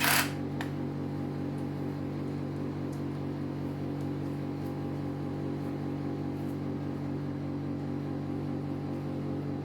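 A short loud burst at the very start, then a steady mechanical hum of several fixed low tones with a few faint ticks, from a running CNC router's machinery.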